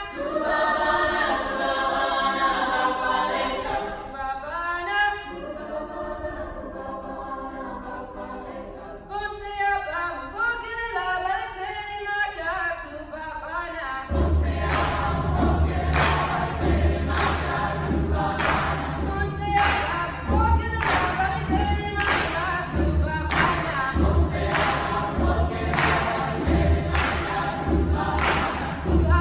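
Mixed choir singing sustained chords a cappella. About halfway through, a steady clapped beat with low thumps underneath joins the singing, roughly one stroke every 0.7 seconds.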